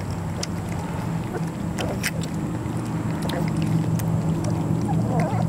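Three-week-old Vizsla puppies lapping and slurping soft puppy mush from a metal pan, with wet smacking and occasional sharp clicks, over a steady low hum.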